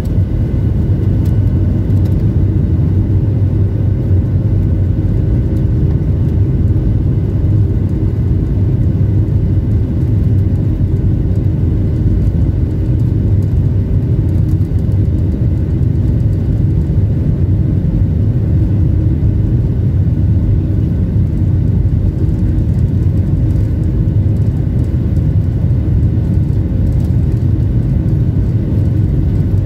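Cabin noise of a Boeing 737-700 taxiing: a steady low rumble with a faint whine from its CFM56-7B turbofan engines running at low power.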